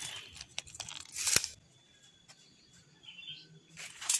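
Rustling and crunching of movement in dry leaf litter and handling close to the microphone, with one sharp, loud crunch about a second in. A quiet stretch follows with a brief faint high chirp, then more crackling near the end.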